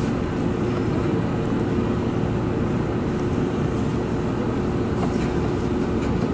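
Steady hum and rumble of an electric train standing at the station, with two constant hum tones over a low drone and no sudden events.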